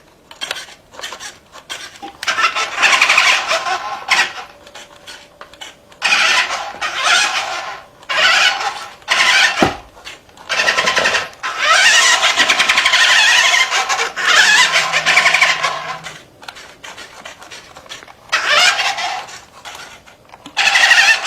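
Remote-control Monster Truck Mater toy truck driving in repeated bursts, its small electric drive motor and plastic gearbox whirring with a buzzing whine each time it is run.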